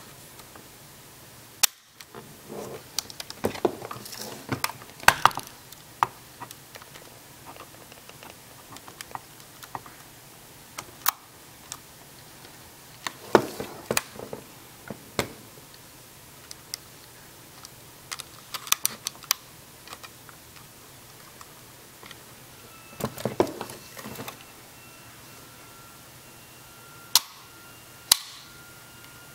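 Polaroid Land Camera Model 250 being opened and handled: sharp metallic clicks and snaps as the front cover latch is released and the lens standard, bellows and metal struts are pulled out and locked. Short bouts of rattling and scraping of metal parts come between the clicks, in scattered groups.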